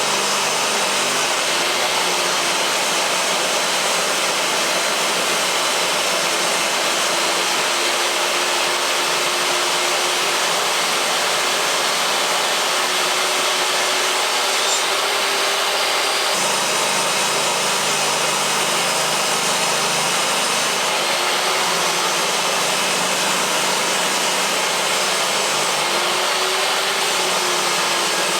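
A workshop machine running steadily: an even whooshing noise with a faint hum that wavers slightly in pitch, and a sudden change in tone about halfway through.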